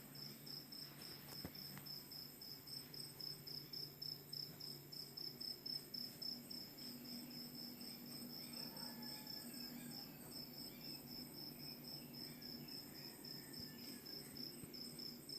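A cricket chirping steadily at night: an even high pulse about four times a second, faint, over a low steady rumble.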